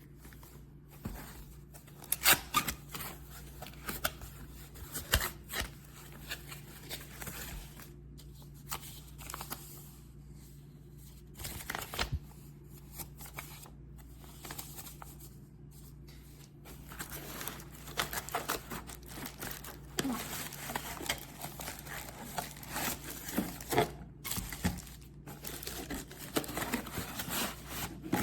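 Handling noises: irregular rustling and crinkling with scattered sharp clicks and taps, over a faint steady low hum.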